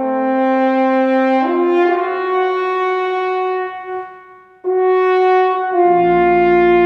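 French horn playing a slow melody in long held notes, stepping upward, with a short break for breath about four seconds in before the next note. Near the end the organ comes in underneath with low held notes.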